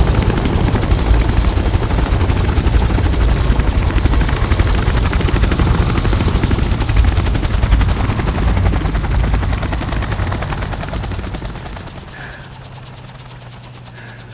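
Helicopter rotor sound effect: a loud, fast rhythmic chop that fades to a lower level over the last few seconds as the helicopter comes down to land.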